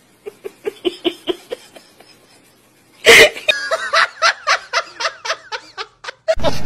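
A person laughing in short rhythmic bursts, about four a second. About three seconds in, a sudden loud burst, then a quick run of short, high vocal bursts while two dogs play-fight.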